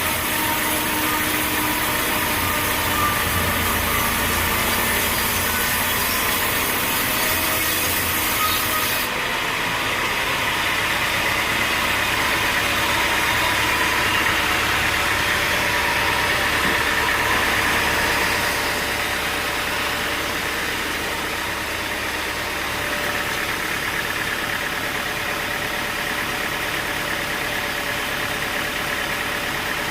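Sawmill machinery running: a steady engine with the noise of a saw working wood. The sound changes abruptly about nine seconds in, losing its hiss.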